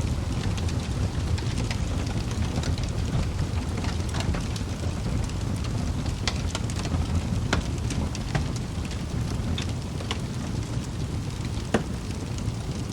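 Wood fire burning in a fireplace: a steady low rumble of flames with scattered sharp crackles and pops from the burning logs, one louder pop near the end.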